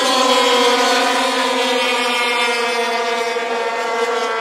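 A pack of racing snowmobiles' two-stroke engines running flat out at high revs, several engine notes overlapping. The pitch drops slightly as the sleds go past, then holds high and steady as they pull away down the straight.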